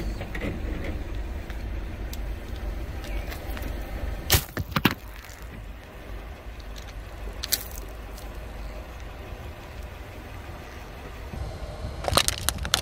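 A car's engine rumbles low and steady as its tyre rolls slowly over gel-filled squishy balls on asphalt. There are sharp pops and cracks about four to five seconds in and again near seven and a half seconds as the balls are crushed. Near the end comes a quick cluster of cracks as the tyre crushes plastic yogurt cups.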